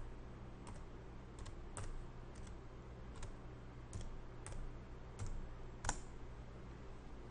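Computer keyboard keys pressed one at a time, about a dozen separate taps spread unevenly over several seconds while a bearing is typed in. The last and loudest keystroke, about six seconds in, enters the value.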